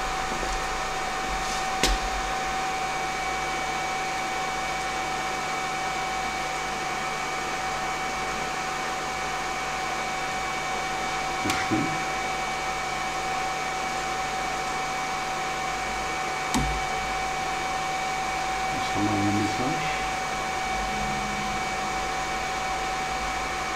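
Steady electric motor whine with a rushing air sound and a fixed high tone. A few light clicks are heard along the way.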